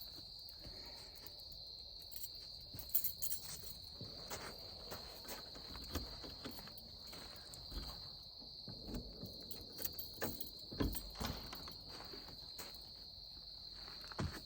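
Steady high-pitched chorus of crickets, with scattered knocks and rustles from close by.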